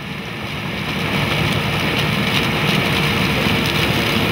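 CLAAS combine harvester with a maize header harvesting standing corn. The engine drone runs under a dense crackling hiss of stalks going through the header, fading in over the first second and then steady.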